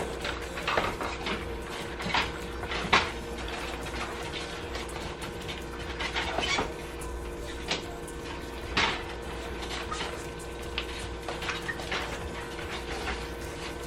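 Spoon mixing a pot of plantain porridge, knocking and scraping against the pot at irregular intervals over a steady low hum.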